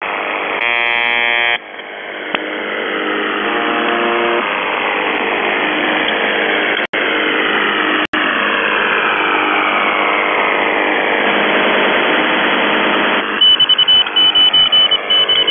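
Shortwave radio on 4625 kHz, the UVB-76 'Buzzer' station: loud static hiss crossed by sweeping interference tones, with the station's one-second buzz about half a second in and a fainter buzz around four seconds. The signal drops out briefly twice, and near the end a fast choppy pulsing sets in.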